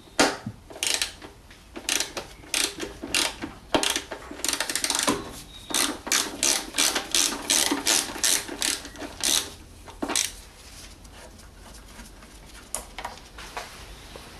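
Ratchet wrench clicking in short runs as a 10mm bolt is undone. The clicks come quicker and closer together partway through, then stop about ten seconds in, leaving only a few faint clicks.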